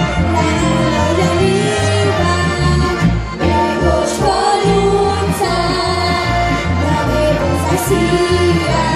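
Live Slovenian folk-pop band playing a bouncy tune: accordion leading, bass guitar alternating notes on the beat, with acoustic guitar, drums and several voices singing. A few cymbal crashes cut through, about four, five and eight seconds in.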